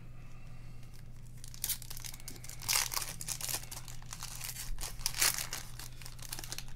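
Foil wrapper of a trading card pack crinkling and tearing as it is opened, in several short rustling bursts.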